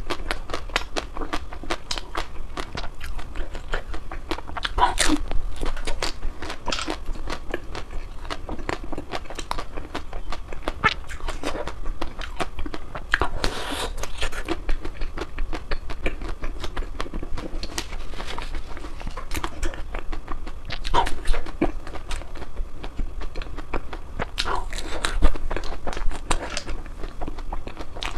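A person chewing and biting ice cream: a dense, irregular crackle of wet mouth sounds, with a few louder bites spread through.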